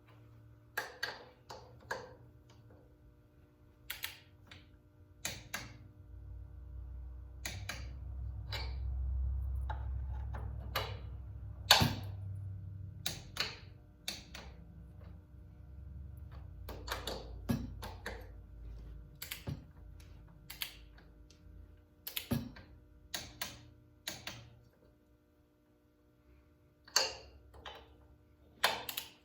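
Click-type torque wrench ratcheting and clicking as the cylinder head bolts of a Kohler-powered Allis Chalmers tractor are tightened to 25 ft-lb in sequence: scattered sharp metallic clicks, singly and in short runs. A low rumble swells and fades through the middle.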